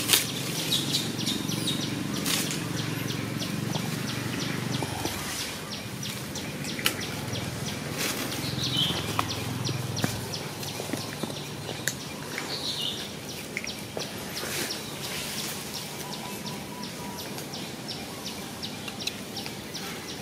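Outdoor woodland ambience: a few short bird chirps over a steady, fast high ticking, with scattered crackles of dry leaves as a baby macaque moves through the leaf litter.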